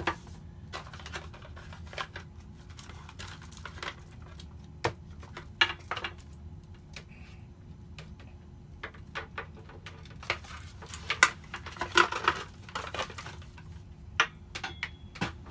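A cardboard box and its packed contents being handled during unboxing: scattered taps, knocks and rustles, busiest near the end.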